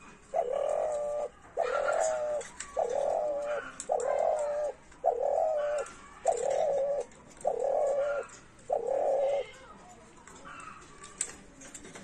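Spotted dove cooing: eight coos in a row, about one every 1.2 seconds, each a low wavering note.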